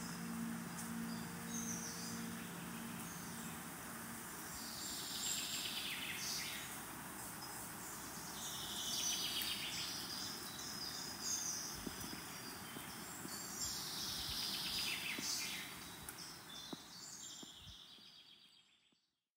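Birds calling in repeated chattering bursts over a steady wash of ambient noise, with a low singing-bowl tone dying away in the first few seconds; the whole soundscape fades out near the end.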